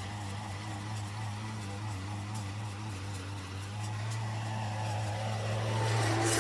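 Brush cutter's small petrol engine running at a steady working speed as its blade mows grass, getting louder near the end as the cutter comes close.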